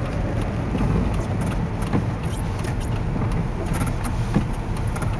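Small truck driving on a wet, slushy road, heard from inside the cab: a steady low rumble of engine and tyres, with scattered light clicks.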